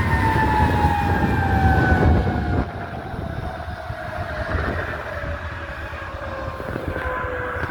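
A fire apparatus's siren winding down in one long, slowly falling tone. Low vehicle rumble under it fades out about two and a half seconds in as the truck moves off.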